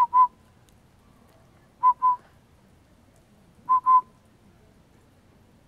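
Northern pygmy owl giving its whistled toot call: three pairs of short, even notes about two seconds apart.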